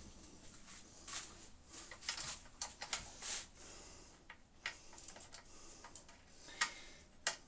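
Scattered light clicks and taps of small metal fixing hardware, nuts and bolts handled and fitted at the metal base of a benchtop drill press, with two sharper clicks near the end.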